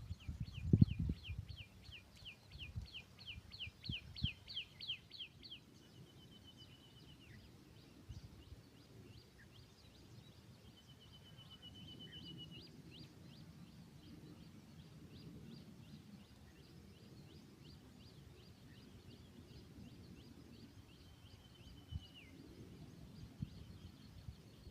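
Red-wattled lapwing calling: a fast run of sharp, falling notes, about four to five a second, for the first five seconds or so, then fainter repeated notes broken by a few longer, drawn-out notes. A few low thumps on the microphone in the first second.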